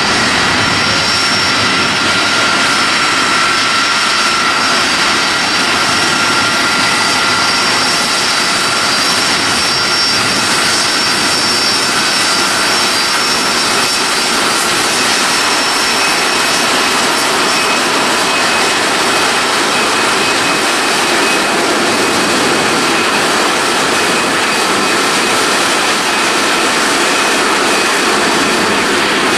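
Boeing 747SP's four jet engines running at taxi power: a loud, steady rush with high whining tones over it, the whine fainter in the second half.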